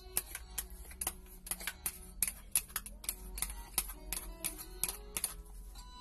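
A metal spoon tapping and scraping against a plastic bowl as ketchup is scraped out into the pot: a run of sharp, irregular clicks, with background music underneath.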